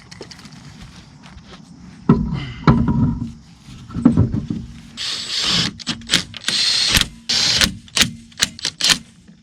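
Wheel-removal work on a car at the hub: heavy thumps and clatter, then short hissing bursts and a run of sharp clicks from tools on the lug nuts and wheel.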